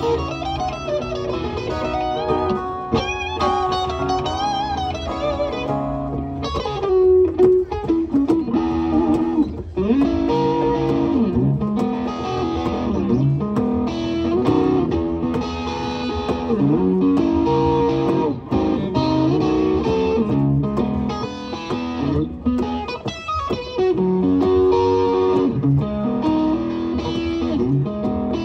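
Instrumental guitar break with no singing. An electric guitar plays lead lines with string bends and vibrato over an acoustic guitar for the first several seconds. Then both guitars settle into rhythmic strummed chords.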